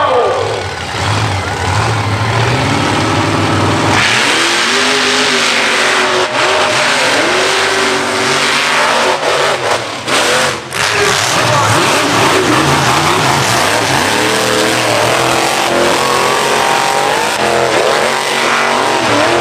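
Mega truck engine revving hard, its pitch climbing and dropping repeatedly as the throttle is worked. About four seconds in it opens up to full throttle, with a harsh rushing layer over the engine.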